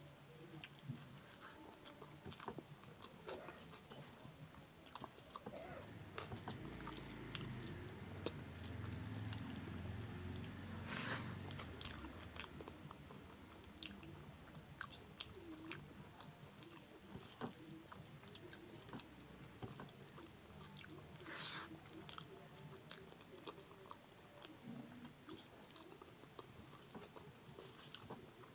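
A person chewing and biting food close to the microphone, with scattered small mouth clicks and smacks. A low rumble swells in the middle.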